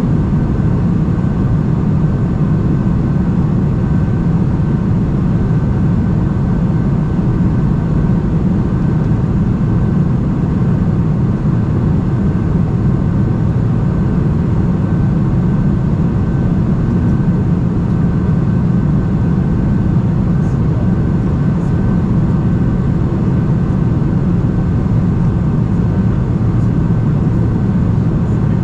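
Steady cabin noise inside a Boeing 747-400 in flight: a low, even drone of engines and airflow past the fuselage, with a thin steady whine above it.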